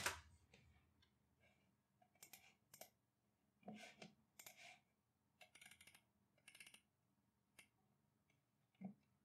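Faint computer mouse and keyboard clicks, in small scattered groups.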